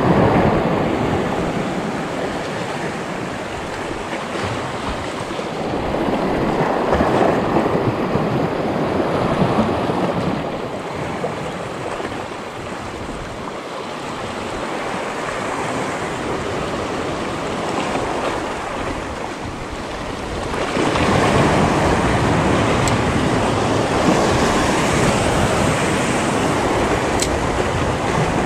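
Sea surf surging and washing over shore rocks, a rushing wash that swells and falls back in long surges, louder about a quarter of the way in and again from about two-thirds through.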